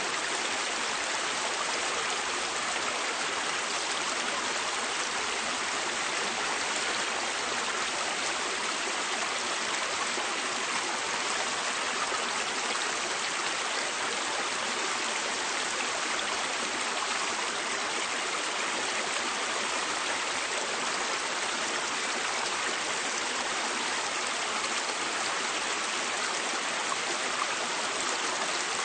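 River water flowing: a steady, even rush of water that is mostly hiss and splash, with little low rumble.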